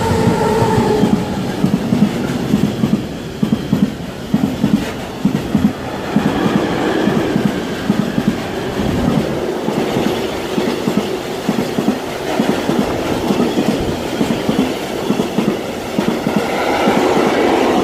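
Freight train of tank wagons passing close by, hauled by a Siemens Vectron electric locomotive. The locomotive's whine drops in pitch as it goes past at the start. Then the wagon wheels keep up a steady, rhythmic clickety-clack over a rushing noise.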